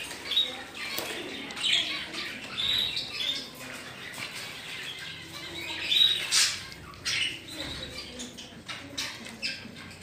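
Pet budgerigars chirping and chattering in short high calls, with a few sharper squawks and clicks; the loudest call comes about six seconds in.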